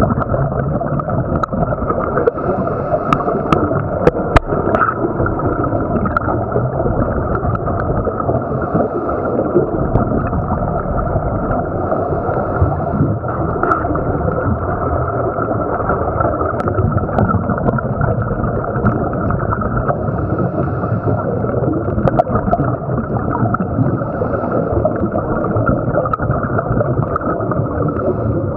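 Muffled underwater rushing and gurgling heard through a camera's waterproof housing, with the bubbles of scuba divers' exhaled air. A few sharp clicks stand out in the first five seconds and twice more later.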